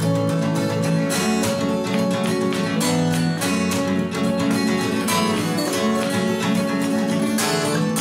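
Two acoustic guitars played together in an instrumental passage, strummed chords in a steady rhythm.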